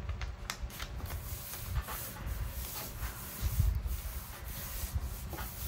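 Paper being rubbed in repeated strokes, a dry scraping rustle with a few light clicks, as glue is worked onto a magazine page.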